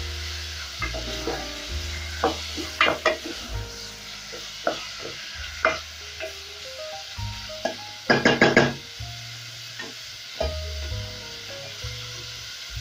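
Freshly added cubes of raw goat meat sizzling in hot oil in a metal pot, stirred with a wooden spoon that knocks and scrapes against the pan. There is a quick run of knocks about eight seconds in.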